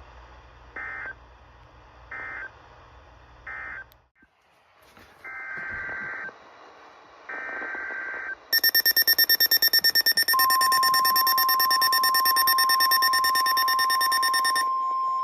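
Emergency Alert System tones between two weather warnings: three short screeching data bursts about a second apart (the end-of-message code), then two longer data bursts of the next alert's header. About eight and a half seconds in, a loud alert tone sounds, beeping rapidly at first and then holding steady. A second steady tone, the weather radio warning alarm tone, joins it about ten seconds in.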